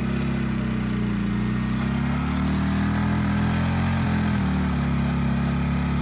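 Portable inverter generator in eco mode speeding up as a 1500-watt heat gun load comes on. Its pitch climbs over the first two or three seconds, steps once about four seconds in, then holds steady under load.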